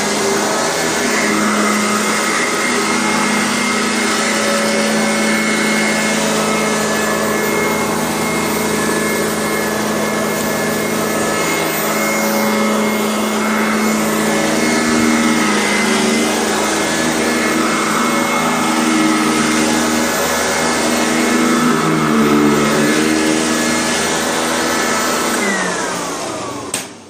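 Kent EUROCLEAN vacuum cleaner running steadily, its motor pitch wavering a little as it works. Near the end it is switched off and the motor whine falls away as it spins down.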